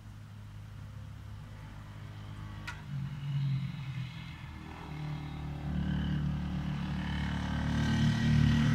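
A motor vehicle's engine running, its steady hum growing louder over the last few seconds.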